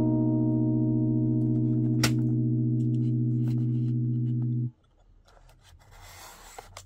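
Background music holding a sustained chord that cuts off abruptly about two-thirds of the way through. Near the end comes faint scraping and ticking from a utility knife slitting the seal on a cardboard box.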